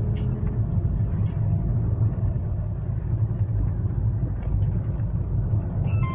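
Car driving on a paved road, heard from inside the cabin: a steady low rumble of road and engine noise.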